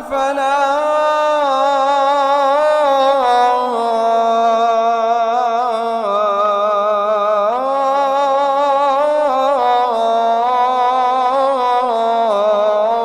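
A muezzin's solo voice chanting the adhan: one long melismatic phrase held almost without a break, winding through ornamented turns in pitch.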